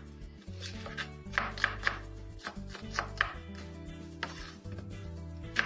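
Kitchen knife chopping an onion on a wooden cutting board: short runs of quick knife strikes with gaps between them, over background music.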